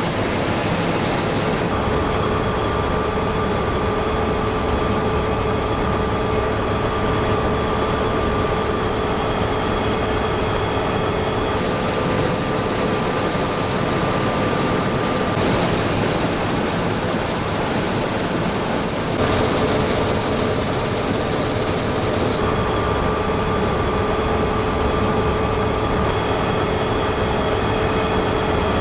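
Claas Lexion 6800 combine harvester at work cutting wheat: its Mercedes six-cylinder engine and threshing machinery make a steady hum with a high whine over it. The mix of tones changes abruptly several times.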